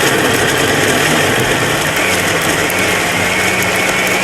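A small electric motor running loudly and steadily, with a high whine over a low hum.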